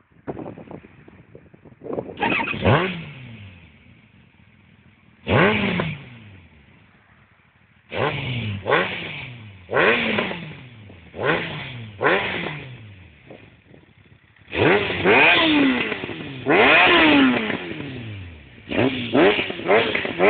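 Kawasaki ZX-9R's inline four-cylinder engine, fitted with an aftermarket Shark silencer, revved at a standstill. It gives a run of sharp throttle blips, each falling back to a low idle, then two longer held revs past the middle and quick blips again near the end.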